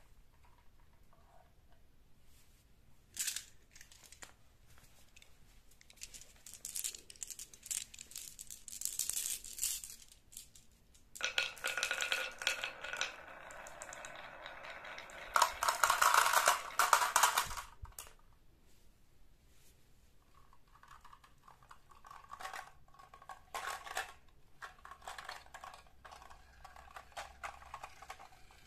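Marbles clicking and rattling along a wavy wooden Haba slope track and rolling down a ribbed plastic pop tube into a toy dump truck. Scattered clicks at first build to a dense, loud rattle in the middle, then softer rattling near the end.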